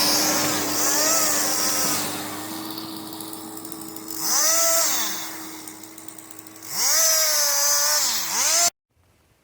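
Chainsaw running and cutting firewood, its engine revving up and dropping back twice over a steady drone, then cutting off abruptly near the end.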